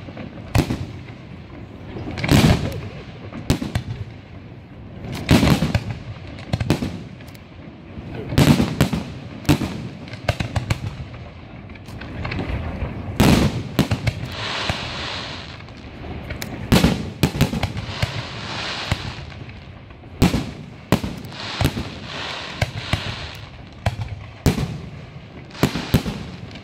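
Aerial firework shells bursting one after another, a deep boom every second or two with echoing rumble after each. From about halfway in, crackling effects fizz between the booms.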